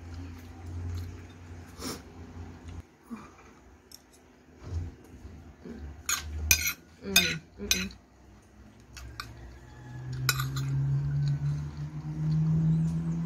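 Metal spoon scraping and clinking against a ceramic plate while scooping rice and curry, with a burst of sharp clinks about six to eight seconds in. A steady low hum starts near the end.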